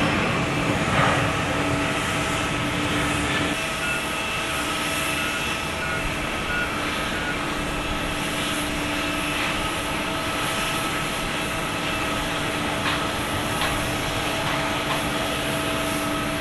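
Jet airliner engines, presumably the Airbus A321neo's, running steadily: a constant whine of several held tones over a broad rush, with no rise or fall in pitch. The low rumble eases slightly a few seconds in.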